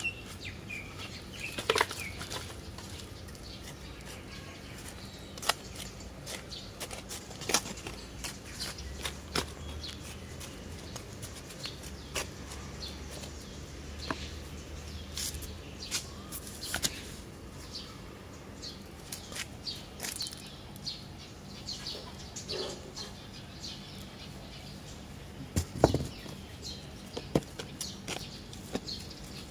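Small metal hand trowel scraping and tapping compost out of a plastic container into a plastic tray, with soil and dry leaves rustling: irregular scrapes, clicks and knocks, the loudest knock a little before the end.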